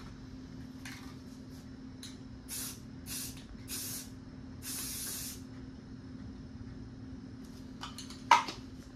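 Aerosol spray paint can spraying in four short hissing bursts, the last one the longest, as paint is laid onto a rifle. A sharp knock comes near the end.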